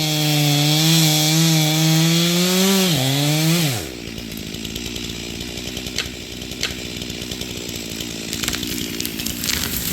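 Two-stroke chainsaw held at full throttle with the pitch wavering under load. It dips briefly near the 3-second mark, then the throttle is released at about 4 seconds and it drops back to a steady idle. A few sharp snaps and crackles come later while it idles.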